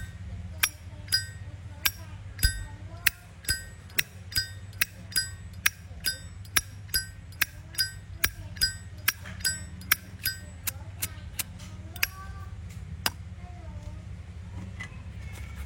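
Zippo lighter lid clicking open and snapped shut over and over, about two clicks a second, each click with a short, clear bell-like ring from a lighter tuned for a 'bell' sound. The clicks stop about 13 seconds in.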